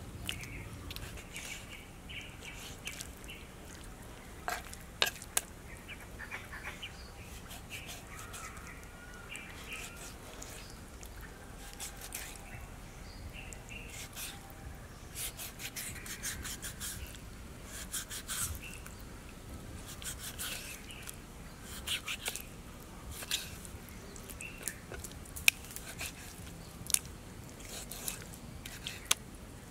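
Knife cutting raw pork on a wooden chopping board: irregular sharp taps of the blade striking the board, sparse at first and more frequent in the second half.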